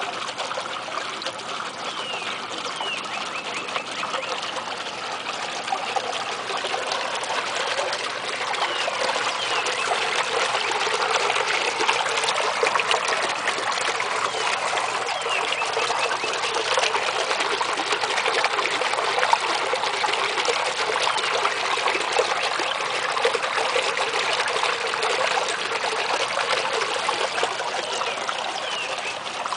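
Small pond fountain bubbling up through a hole in the ice, a steady splashing trickle of water that grows somewhat louder in the middle as it comes closer.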